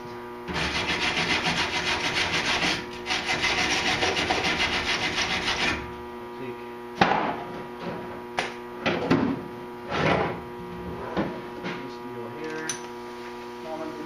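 Hand scraping on metal in rapid strokes, in two runs of about two and a half seconds each, followed by scattered knocks and clicks of handled parts and tools.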